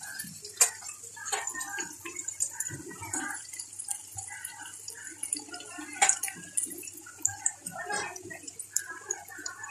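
Potatoes and onion-spice masala frying in oil in a kadhai, sizzling and bubbling with a crackle. A few sharp clicks stand out, the loudest about six seconds in.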